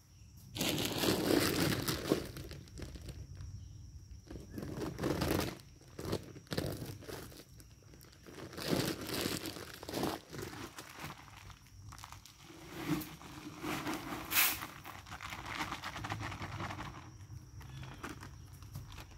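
Feed bags being handled, rustling and crinkling, mixed with footsteps crunching on dry leaf litter, in irregular bursts.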